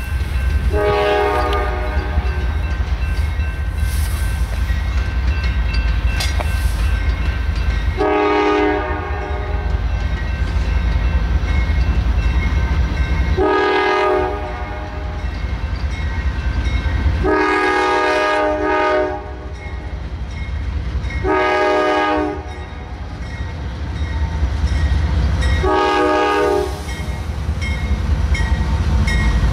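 CSX freight train's diesel locomotives approaching and passing, sounding a multi-note air horn in a series of long and short blasts over the steady low rumble of the engines.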